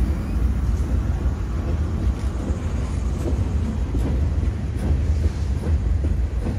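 Freight cars rolling past: a steady low rumble of steel wheels on rail with scattered light clicks. A diesel locomotive's engine note fades out in the first moment.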